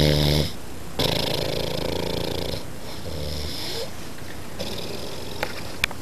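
An elderly man snoring in his sleep. There is a strong pitched snore at the very start, then long noisy snoring breaths from about a second in. The breathing is quieter after the middle, with two small clicks near the end.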